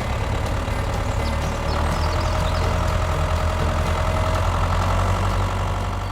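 An engine running steadily, with a faint thin whine through the middle of the stretch.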